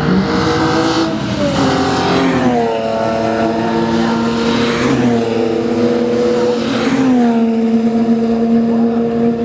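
Race car engines running at high revs as the cars pass one after another on a wet track, tyres hissing through the spray. The engine note falls twice, about two seconds in and again about seven seconds in, and holds steady in between.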